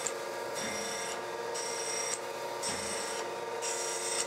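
Thompson surface grinder running with a steady motor and spindle hum, its wheel making a light grinding hiss that comes and goes as the table carries the belt grinder platen back and forth under it. This is the spark-out stage: no downfeed, and the wheel is still just cutting.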